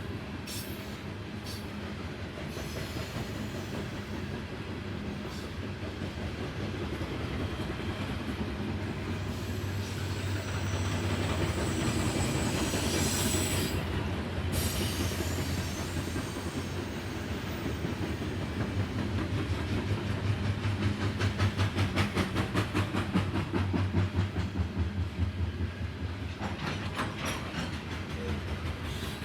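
Norfolk Southern coal train rolling past: a steady rumble of the cars. In the second half it is joined by a fast, even clickety-clack of wheels crossing rail joints, the loudest part, which fades near the end.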